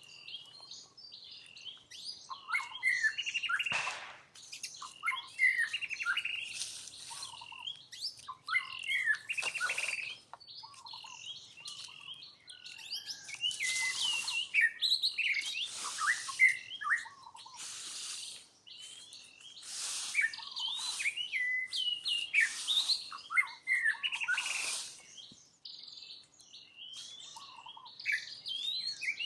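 Repeated high-pitched chirps and squeaks, many sliding down in pitch, coming in clusters every couple of seconds, with short hissy bursts mixed in.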